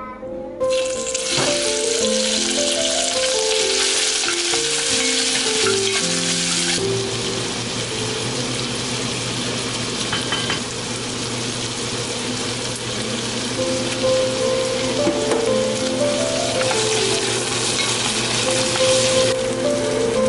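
Pieces of meat frying in sesame oil in an enamelled cast-iron pot, a steady sizzle that starts abruptly just after the start and changes in strength at a couple of points. Background music with a gentle stepped melody plays over it.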